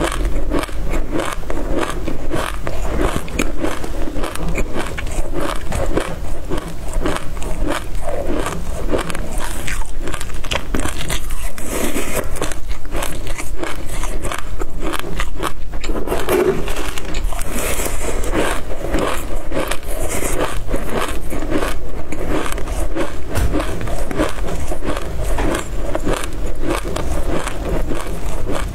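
Close-miked chewing of a mouthful of dry black sesame seeds: a dense, fast crackle of tiny crunches throughout, with a plastic spoon scraping through the seeds in a metal tray at times.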